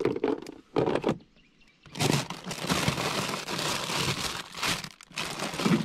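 Handling noise: a couple of short knocks, then a long stretch of rustling and crinkling, as of plastic packaging or a bag being rummaged through.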